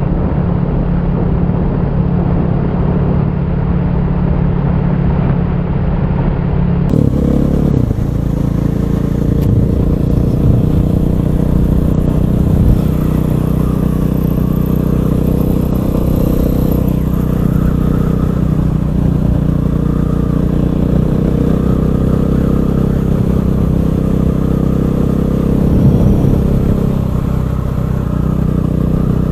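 KTM 500 EXC supermoto's single-cylinder four-stroke engine running under way at a fairly steady pace, its pitch shifting only a little.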